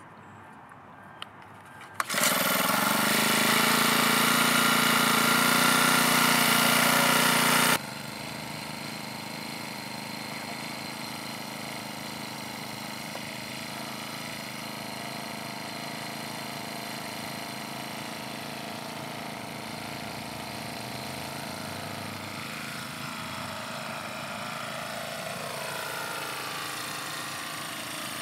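Petrol post driver's Honda GX four-stroke engine. It comes in abruptly and loud about two seconds in and runs steadily for about six seconds, then drops sharply to a quieter steady running, whose pitch wavers near the end.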